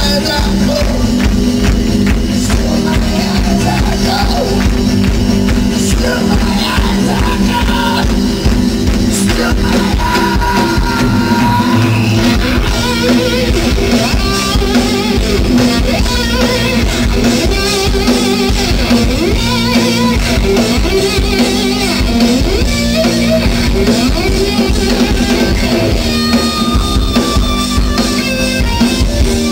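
Live rock band playing: electric guitars, bass and drum kit.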